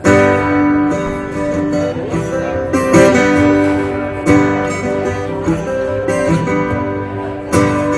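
Live solo guitar playing a song's instrumental intro: strummed chords and picked notes that begin suddenly and loudly at the start, with fresh hard strokes about three seconds in, again a second or so later, and near the end.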